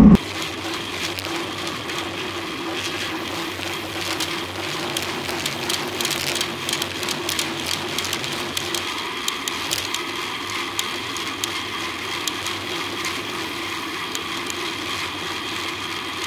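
Road bike rolling on asphalt, heard from a camera mounted on the bike: steady road and wind noise with irregular small clicks and rattles from the bike and mount.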